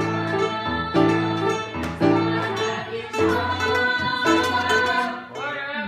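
Upright piano and mandolin playing a tune together, the piano striking a new chord about once a second.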